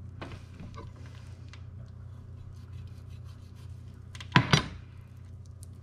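Hands rubbing and handling wet raw chicken on a plastic cutting board, with two sharp knocks in quick succession about four and a half seconds in as the chef's knife is set down on the board. A low steady hum runs underneath.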